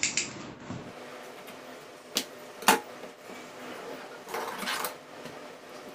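Scissors and a cardboard product box being handled as the box is opened: two sharp clicks a couple of seconds in, then about a second of rustling and scraping of the box near the end.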